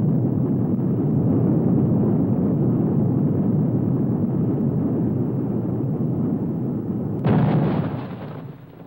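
Studio-logo sound effects: a continuous low rumble as the view rides the rails through a tunnel. About seven seconds in comes a sudden explosion as the wall is blasted open, dying away over about a second and a half.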